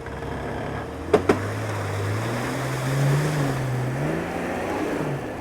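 Jeep Cherokee XJ engine revving hard at full throttle in four-low while climbing a snowy berm. Its pitch climbs and then sags near the end as the Jeep runs out of power and fails to make the climb. Two sharp knocks come about a second in.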